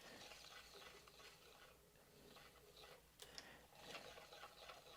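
Near silence, with a few faint light ticks and rustles of plastic as the tape of a toy tape measure is drawn out by hand, a little more of them about three seconds in.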